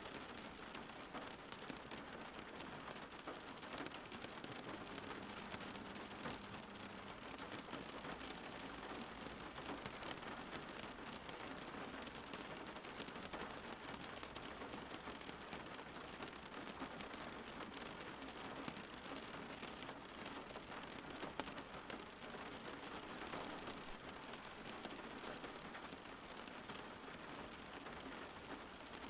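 Steady rain falling, an even, unbroken wash of noise.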